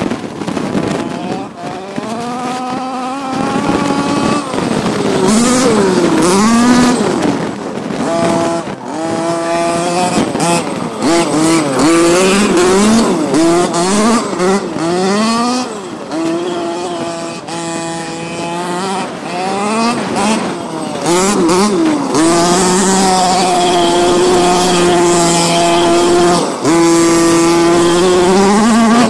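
Losi MTXL 1/5-scale monster truck's OBR G340 SS gasoline two-stroke engine, just broken in, revving in repeated bursts as the truck is driven, the pitch rising and falling many times. Near the end it is held at high revs for several seconds at a time.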